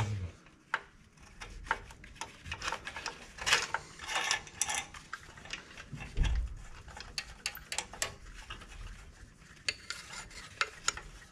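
A spanner clicking and scraping against the steel injector pipe nuts on a diesel injection pump as they are turned: a run of small irregular metal clinks with a couple of brief rasping rubs.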